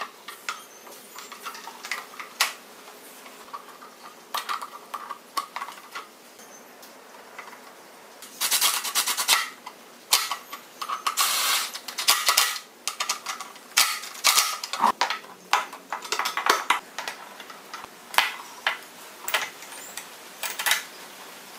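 Metal clicks and clinks of motorcycle front-end parts and bolts being handled, then, from about eight seconds in, several short bursts of a cordless impact driver running bolts into the front fender, with more clicks between them.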